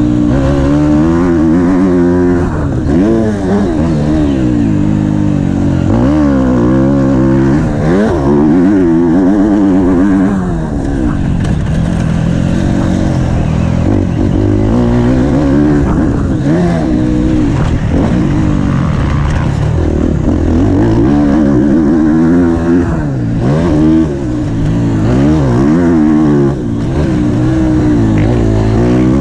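Off-road motocross bike engine heard from on board, revving up and down over and over as the rider accelerates, shifts and rolls off into corners.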